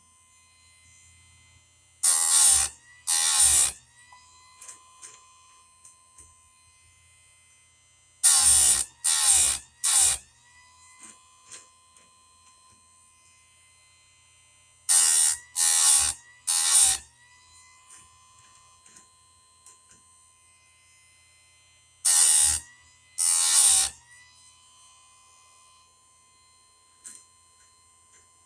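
Electric chainsaw-chain sharpener running with a steady motor whine, its grinding wheel cutting into the chain's teeth in four groups of two or three short, loud passes about every six to seven seconds. After each group the motor's pitch climbs back up as the wheel comes off the tooth.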